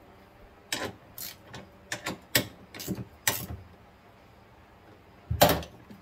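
Irregular clicks and knocks of hand tools and hardware being picked up and handled, about half a dozen in the first three and a half seconds, then a louder knock near the end.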